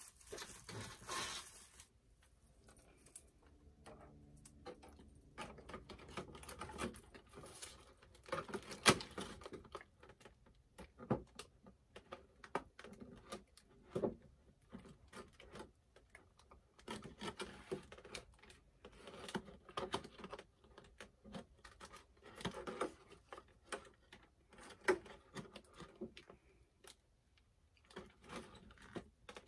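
Plastic packaging rustling and crinkling, then irregular small clicks and taps from hands unwrapping and handling doll accessories, with one sharper click about nine seconds in.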